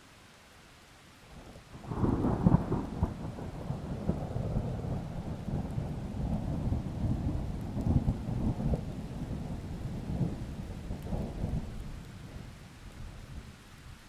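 Thunder over steady rain: a sudden loud clap about two seconds in, then a long rolling rumble that fades away near the end.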